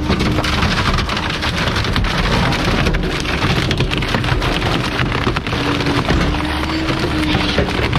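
Garbage truck compactor crushing bulky items: a dense, continuous crackling and splintering of breaking material over a low rumble, with a steady whine at the start and again in the last couple of seconds.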